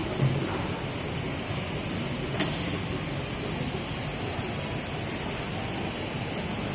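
Automatic soldering machine running with a steady hiss and hum, a soft knock just after the start and a sharp click about two and a half seconds in.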